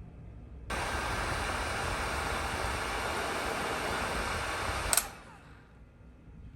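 Electric air blower switched on suddenly and blowing steadily for about four seconds. It cuts off with a click and winds down.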